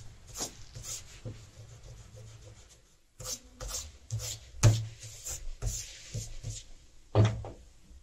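Eraser rubbing on drawing paper in short, irregular scrubbing strokes, with a few louder strokes about halfway through and near the end.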